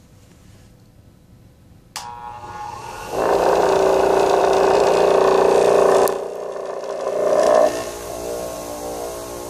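Homemade disc sander's electric motor switched on with a click about two seconds in, spinning up to a loud, steady hum with a whine. About six seconds in there is another click and the level drops, and after a brief swell it runs on steadily at a lower level.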